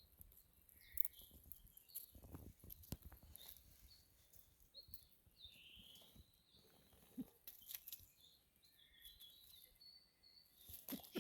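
Wild birds giving faint, short scattered chirps and whistled calls, several overlapping, with occasional sharp clicks and a few low thumps.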